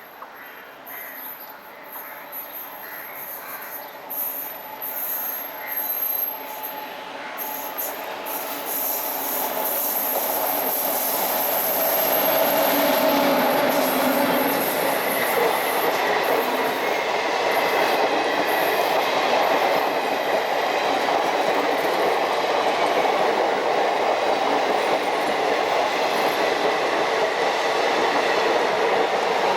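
Passenger train hauled by a WAP-7 electric locomotive approaching and running past on a curve, growing louder over the first dozen seconds and then holding steady. Rolling noise and wheel clatter from the coaches, with wheels squealing on the curve.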